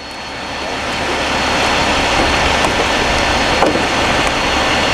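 Steady noise of a road vehicle, its tyres and engine rising over the first two seconds and then holding steady.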